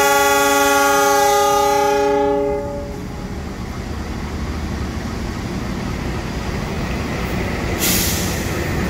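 CC 206 diesel-electric locomotive sounding its air horn: one long multi-tone chord that cuts off about two and a half seconds in. After it comes the steady low rumble of the approaching locomotive, with a short hiss of air near the end.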